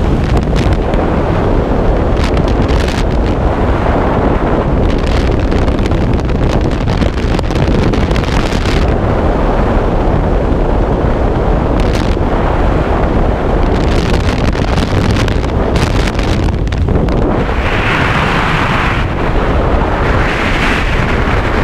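Loud, steady rush of freefall wind over a helmet-mounted camera's microphone during a skydive, turning hissier twice near the end.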